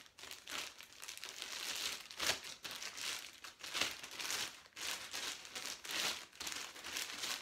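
Clear plastic bag crinkling and rustling as it is worked off a fishing rod, in irregular crackles with sharper ones now and then.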